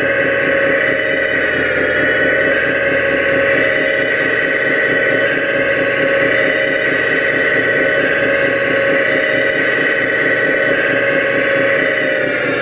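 Hydraulic pump of a 1/14-scale RC Hitachi Zaxis 330 excavator running with a steady whine and fast buzz while the excavator digs, the pitch shifting slightly a few times as the arm works.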